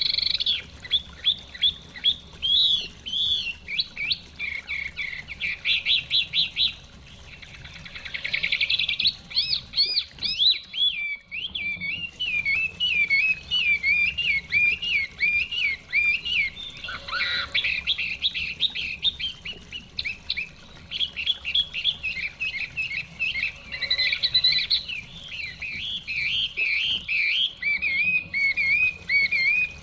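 Chinese hwamei singing a long, varied song of rapid repeated whistled notes and trills, with short breaks in between, over a faint steady background.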